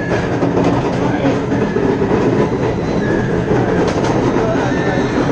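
SheiKra B&M dive coaster train climbing its chain lift hill: a steady, loud clattering of the lift chain.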